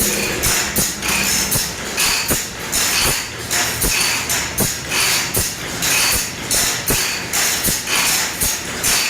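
A hand file rasping across the teeth of a large hand saw being sharpened, in even back-and-forth strokes about one every 0.8 seconds, each starting with a light click.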